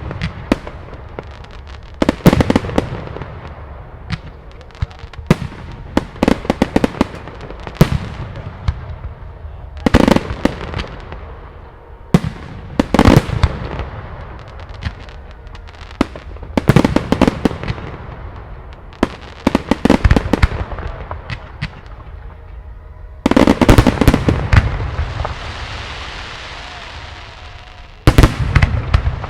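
Aerial firework shells bursting during a fireworks display: clusters of sharp bangs every couple of seconds, each with a trailing rumble. About 23 seconds in a dense barrage of reports goes off and leaves a lingering hiss, and another salvo follows near the end.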